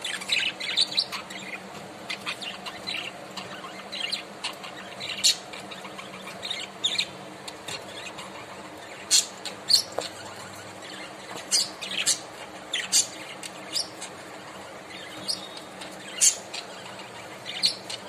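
Pet budgerigars chirping: short, high chirps coming irregularly throughout, densest in the first second or two.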